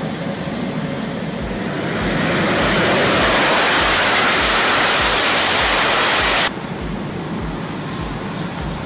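Jet engine noise on a carrier flight deck, a steady rush that swells about two seconds in and stays loud for several seconds. It cuts off suddenly about six and a half seconds in, leaving a quieter steady rush.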